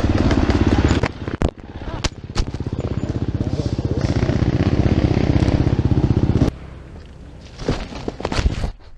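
Dirt bike engine running hard, then dipping with several sharp knocks and clatter as the bike goes down on the trail. The engine keeps running for a few seconds and then stops abruptly about six and a half seconds in, followed by a few scattered knocks.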